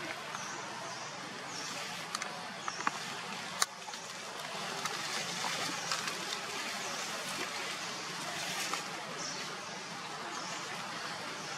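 Outdoor forest ambience: a steady hiss with a short high chirp repeating about once a second, and a few sharp clicks around three to four seconds in.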